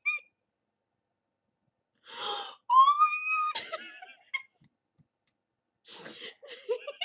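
A woman's fit of laughter: a gasping breath about two seconds in, then one long high-pitched squealing wail, and after a short pause, wheezy bursts of laughter muffled behind her hand near the end.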